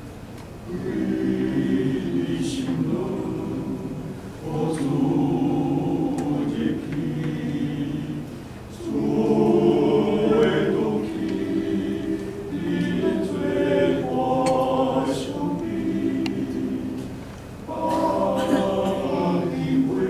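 Men's vocal ensemble singing a hymn in Taiwanese in close harmony, unaccompanied. The singing begins about a second in and goes in phrases, with short breaks for breath between them.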